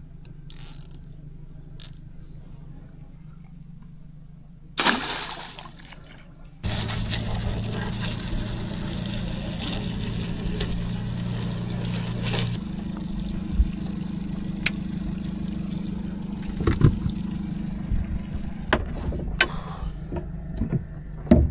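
A few knocks, then a motor starts up about six and a half seconds in with a steady hum under a loud rush of water. The rush stops suddenly about six seconds later, and the hum runs on with scattered knocks.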